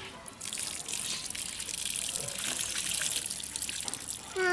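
Water pouring and trickling out of a tilted aluminium pot onto the ground as the pot is drained and the fish are held back by hand; the pouring starts about half a second in and runs steadily. A short pitched call, louder than the pouring, comes right at the end.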